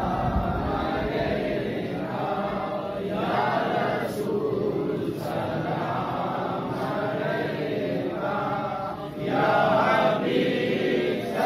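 A group of men's voices chanting a devotional recitation together in unison, growing louder about nine seconds in.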